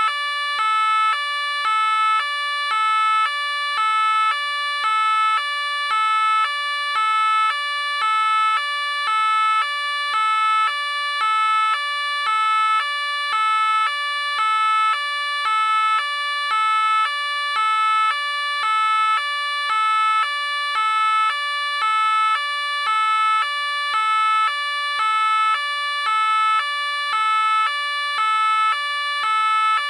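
French police car two-tone siren, stepping steadily back and forth between a high and a low note about once a second.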